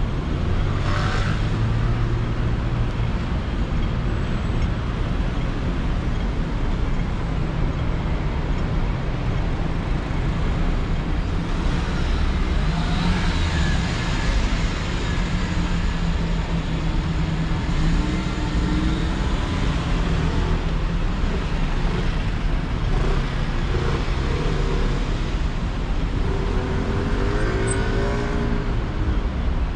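Road traffic at a busy city intersection: car and van engines running close by, with vehicles passing. Twice, once about halfway and once near the end, an engine note rises as a vehicle pulls away.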